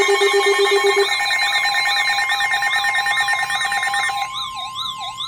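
Several electronic emergency alert tones sounding together: steady alarm tones under a fast warbling siren tone, with a low pulsing beep that stops about a second in. About four seconds in, the steady tones drop out and a lower wailing siren takes over.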